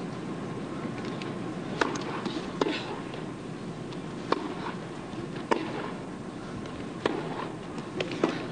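Tennis rally: a series of sharp racket-on-ball hits, irregularly spaced about one to one and a half seconds apart, over a steady arena hum.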